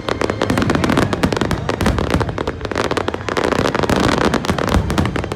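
Fireworks display: many rapid crackling bangs and pops overlapping without a break.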